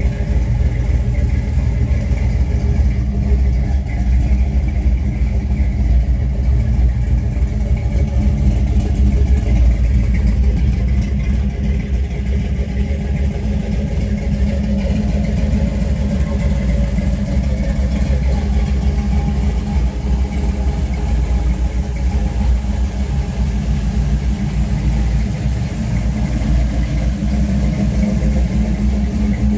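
Big-block V8 of a 1959 Chevrolet Impala idling steadily through its exhaust, a low, even note.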